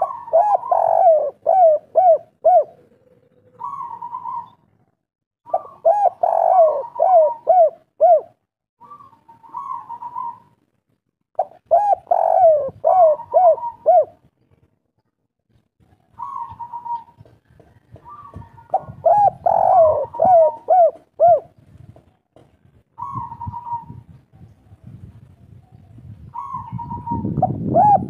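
Spotted dove cooing: a phrase of five or six quick coos about every six seconds, with shorter single calls between the phrases.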